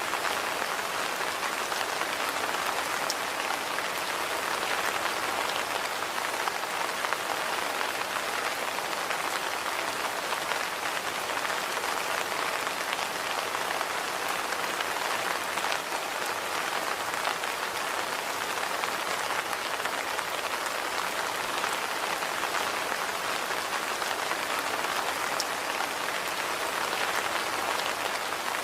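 Steady rain falling, an even hiss with many fine drop ticks.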